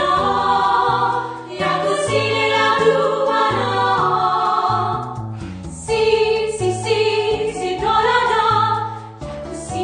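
A song playing: a choir singing over an instrumental backing with a moving bass line.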